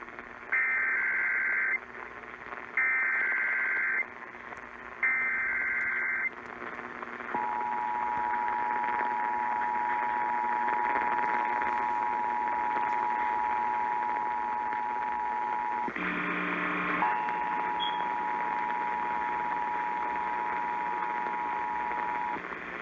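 Emergency Alert System broadcast over radio, opening a Required Monthly Test. First come three one-second bursts of SAME header data, a buzzy warble between two pitches, a second apart. Then the steady two-tone attention signal is held for about fifteen seconds, broken for about a second near its middle by a brief different sound.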